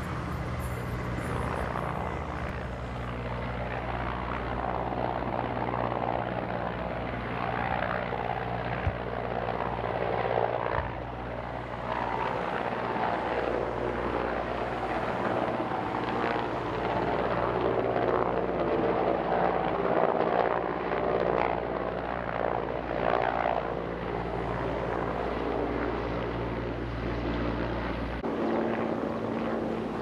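Firefighting helicopter flying with a water bucket slung beneath it, its rotor and engines making a steady low drone. The drone drops away about two seconds before the end.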